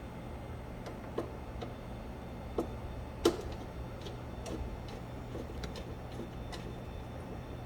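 Scattered light clicks and taps from handling wires and their terminals, about a dozen irregular ones, the loudest about three seconds in, over a steady low hum.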